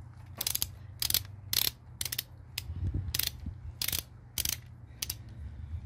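Ratchet head of a torque wrench clicking in short bursts, about two a second, as connecting-rod cap nuts are run down on the first pass to 20 foot-pounds.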